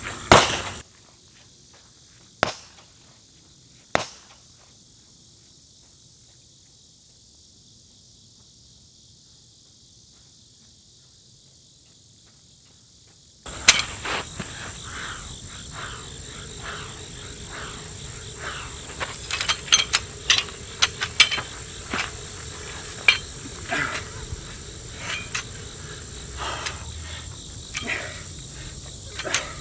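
Insects chirping in a steady high hiss, with a string of sharp knocks and clicks over it in the second half. The first part is quiet apart from two single clicks.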